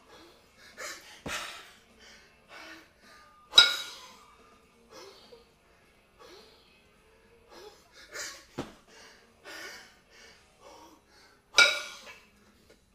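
Hard, rhythmic breathing, gust after gust, from a lifter deep into a ten-minute jerk set with a pair of 22 kg kettlebells. Twice, about eight seconds apart, the iron bells clank together with a loud ringing clang, and there are two duller knocks in between.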